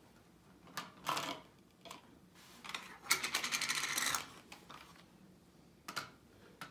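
Plastic toy pieces knocking on a wooden tabletop: a few separate knocks, then a rapid clattering rattle lasting about a second, about three seconds in.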